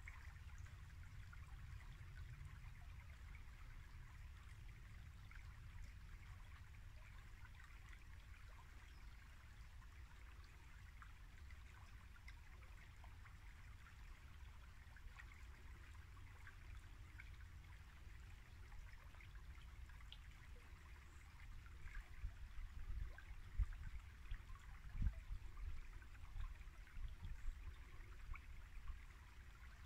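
Small woodland brook babbling faintly and steadily over its shallow bed. In the last third, irregular low thumps and rumble come in over it.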